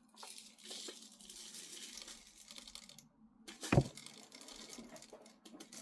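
BBs rattling and clicking as they are poured into and shaken around the BB reservoir of a Crosman M4-177 air rifle, with a short louder sound about four seconds in.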